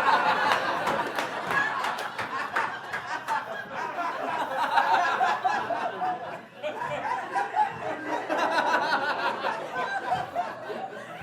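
Audience laughing, with scattered clapping in the first few seconds; one audience member's odd, distinctive laugh stands out.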